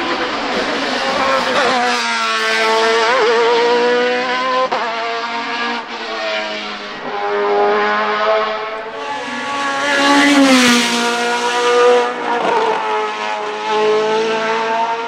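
Hillclimb sports prototype race car engine revving hard and climbing in pitch, dropping sharply at each upshift. One car passes close about ten seconds in, which is the loudest moment, and its pitch falls as it goes by.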